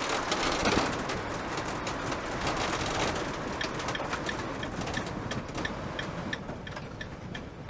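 Cab of a motorhome on the move: steady engine and road noise with many small rattles and ticks from the interior.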